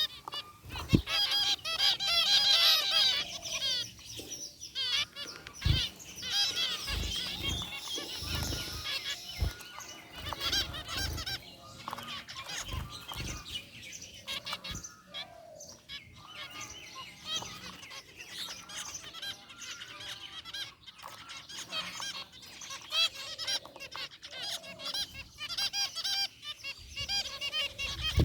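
A flock of zebra finches calling: many short, nasal, honking beeps and chirps overlapping, busiest in the first ten seconds and thinner after, with a few low thumps now and then.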